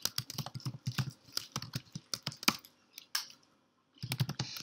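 Typing on a computer keyboard: a quick run of key clicks, a pause of about a second shortly after the three-second mark, then typing starts again.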